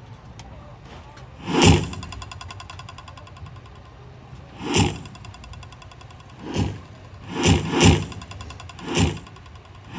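Short swelling whooshes, seven in all at uneven intervals, each building for about half a second and then cutting off, over a low steady hum: sound effects in a marching band's field show.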